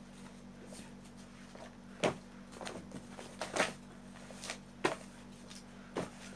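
Books being handled on a desk: a handful of light knocks as books are set down and moved, with smaller rustling and handling noises in between, over a steady low hum.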